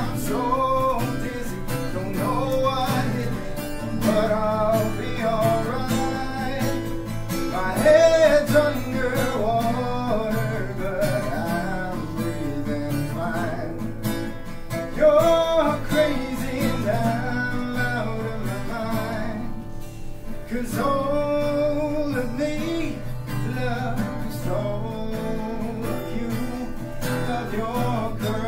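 Acoustic guitar strummed live, with a man singing a melody over it.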